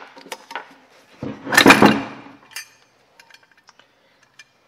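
Small metal clicks of a wrench and nuts on a turbocharger, then about a second and a half in a loud clatter lasting about a second as the turbo's compressor housing slips off and lands on the wooden bench, followed by a few faint clicks.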